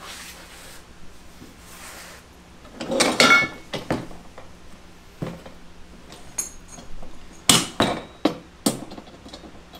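Assembly clatter from a poly dump cart with a steel frame: a loud clunk and scrape about three seconds in as the plastic bed is tipped onto its side, then a run of short sharp metallic clinks and knocks from a hand tool on the frame bolts.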